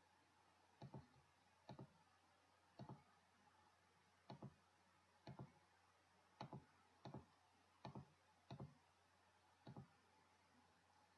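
Computer mouse button clicking, about ten separate clicks spread unevenly, each a quick press-and-release pair, against a faint hiss.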